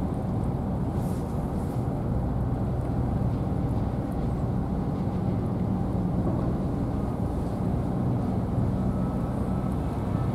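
Steady low drone of an idling engine, unchanging throughout.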